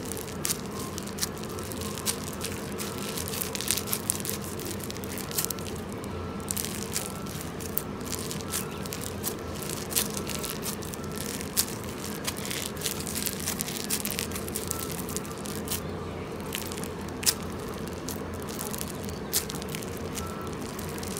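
Orange bead-filled slime being squeezed and stretched by hand, giving a crunchy crackle of many irregular sharp clicks and pops, some louder than the rest.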